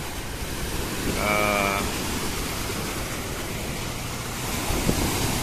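Rough sea surf breaking and washing onto the beach, a steady rush of choppy waves.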